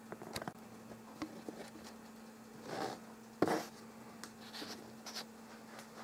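Faint handling noise: scattered soft clicks and rustles, with two louder rustles about halfway through, over a steady low hum.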